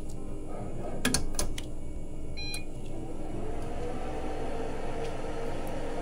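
A few sharp handling clicks about a second in, then a short electronic beep from lab equipment, over a steady low hum.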